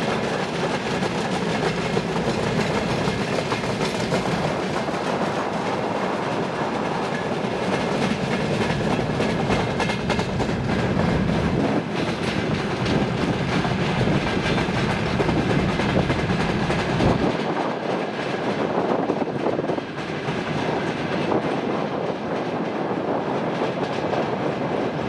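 Long freight train of open wagons on a broad-gauge line rolling past, a steady rumble with a clatter of wheels over the rail joints. About two-thirds of the way through, the low rumble drops away and the sound thins out.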